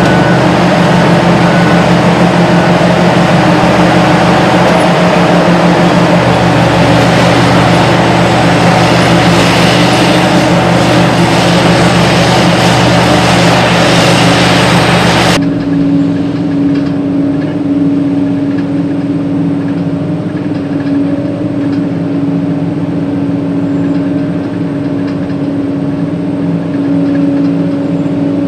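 Hitachi EX8000-6 mining shovel's diesel engines and hydraulics running under load as it digs, a dense, steady machine noise. About halfway through it cuts abruptly to a quieter, steadier engine drone with a clear hum, heard from inside the operator's cab.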